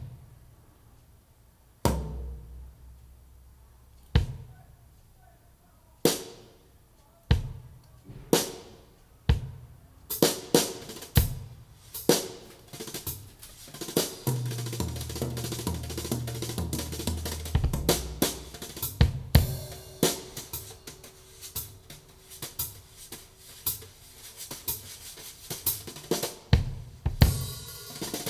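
Drum track played through a single woofer driver whose torn foam surround has been patched with tissue paper, as a test of the repair. Single drum hits about every two seconds, then from about ten seconds in a busy full kit with deep bass notes; the uploader feels the repaired driver still has problems.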